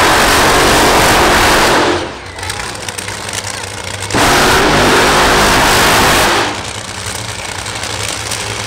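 Top Fuel dragster's supercharged nitromethane-burning V8 at full throttle for a burnout, twice, each blast lasting about two and a half seconds, the first ending about two seconds in and the second starting about four seconds in. Between the blasts and after the second the engine runs at a rough idle.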